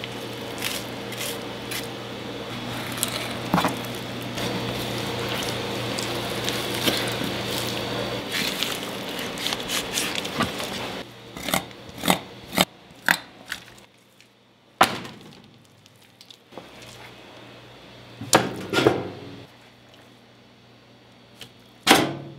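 Kitchen prep sounds: a steady machine hum for about the first half, then scattered knocks and clatters of trays and utensils being handled.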